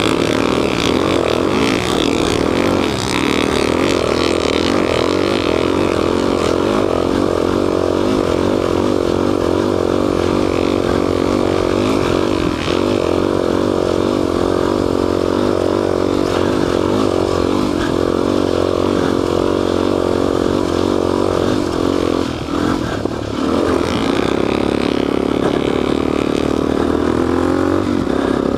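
Dual-sport motorcycle engine running under steady throttle while riding through sand. The throttle eases off briefly about 22 seconds in, then picks back up.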